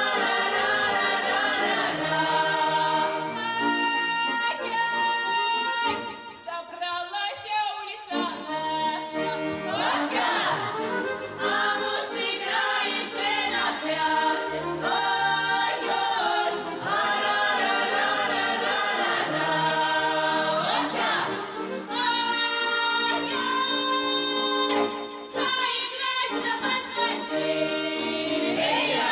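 A young folk ensemble sings a Russian folk song in several voices, largely a cappella, with held notes and upward sliding calls between phrases. The singing dips briefly about a quarter of the way in.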